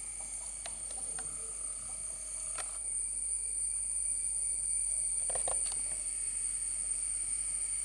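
Steady, high-pitched chirring of insects, with a few faint clicks and small knocks scattered through it.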